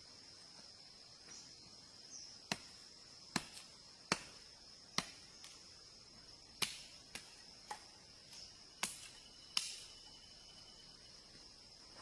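About ten sharp knocks of a hand tool striking bamboo, coming at uneven intervals, over a steady high drone of crickets.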